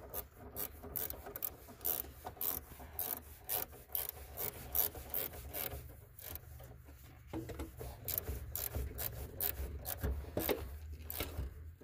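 Hands working a power wire and pliers at a car battery terminal: irregular rubbing, scraping and small clicks, over a low steady hum.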